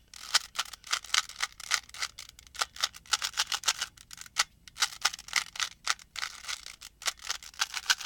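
3x3 Rubik's cube being turned quickly by hand, its plastic layers clicking in rapid runs of several clicks a second with brief pauses, as the last layer is being solved.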